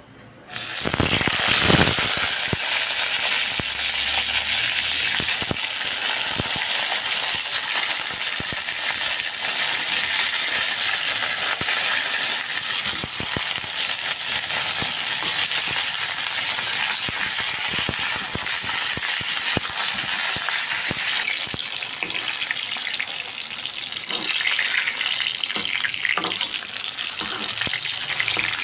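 Whole small eggplants dropped into hot oil in a kadhai, sizzling loudly: a sudden burst of frying hiss about half a second in, then steady sizzling with crackling pops of spattering oil that eases slightly in the last third.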